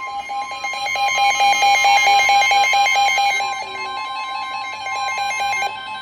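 NOAA weather radios sounding a severe thunderstorm warning alert: a steady high warning tone held throughout, with a fast pulsing alarm beep over it that stops near the end.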